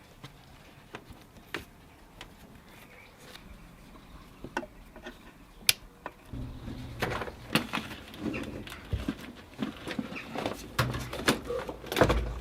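Scattered light clicks and knocks, sparse at first and busier from about halfway through, with a low hum underneath in the second half.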